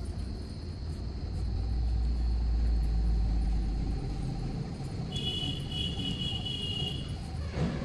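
Low rumble of a passing motor vehicle, swelling over the first few seconds and easing off, with a thin high tone lasting about two seconds near the end.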